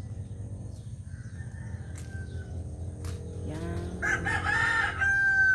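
A rooster crowing: one long crow in the second half that rises, breaks into a few segments and ends on a long held note that drops away. A fainter, more distant crow comes about a second in.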